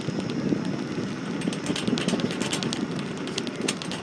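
Motor scooter riding along a road: steady engine and road noise, with frequent short rattles and clicks from the metal carrier rack and wire basket.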